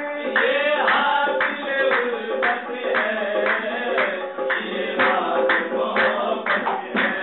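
Qawwali music: men singing with a harmonium, over a steady beat of percussion strokes about twice a second.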